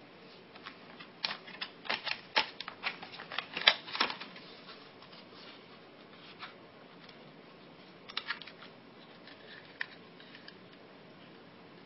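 Hard plastic being handled: the molded black plastic camera body of a DIY camera kit pulled from its clear plastic blister tray and turned over in the hand. It makes a quick run of sharp clicks and crackles for the first few seconds, then a short cluster of clicks later and a few single ones.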